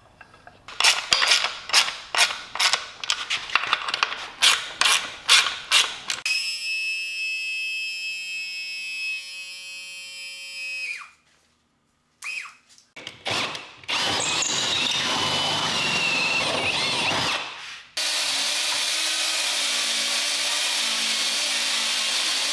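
Hand and power tool work on a boat's transom fittings: first a run of sharp clicks and taps, then a power tool spinning at a steady pitch for several seconds. After short pauses, a harsher power tool runs steadily, in two stretches near the end.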